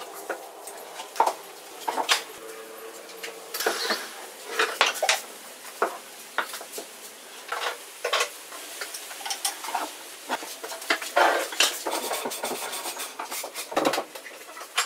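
Hardwood boards knocking and clattering against each other and a wooden workbench top as they are picked up, laid out and set down: irregular sharp knocks, a few louder than the rest.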